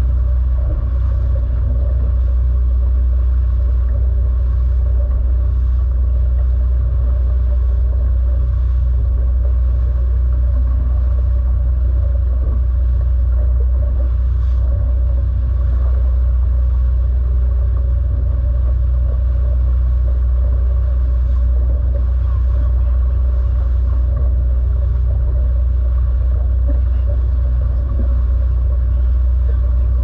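Motorboat under way, its engine running steadily with a deep, unbroken rumble and water rushing along the hull.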